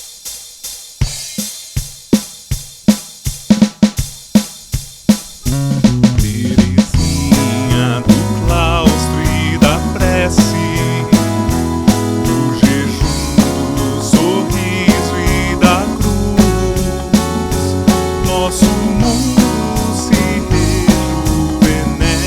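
Instrumental introduction of a pop-style hymn arrangement. It opens with evenly spaced drum hits, about three a second. About five and a half seconds in, the full band comes in with drum kit, bass and melody.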